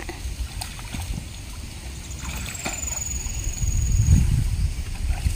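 Water buffalo wading in a shallow muddy pond, with faint sloshing of water over a low rumble that swells towards the end. A faint, thin, high whistle is heard for about two seconds in the middle.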